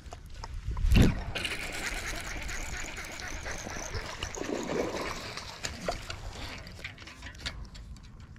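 A hooked bass splashing and thrashing at the water's surface as it is reeled in, with a sharp loud hit about a second in and several seconds of splashing after it.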